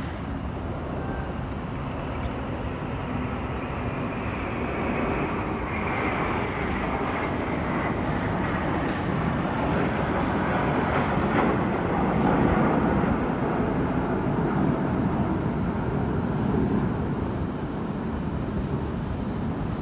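Formation of military jets flying past: a broad jet rumble that swells to its loudest about halfway through and then eases a little, with a faint high whine falling slightly in pitch a few seconds in.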